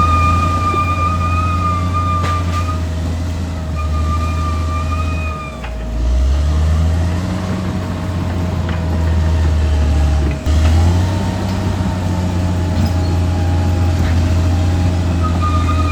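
Caterpillar D6R XL bulldozer's diesel engine running under load, its note dipping and changing about a third of the way in and again about two-thirds in, with a high whine that comes and goes.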